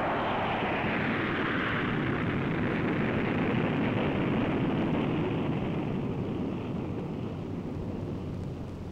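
Jet engine noise from a Boeing B-52 mothership flying past, fading gradually as it draws away.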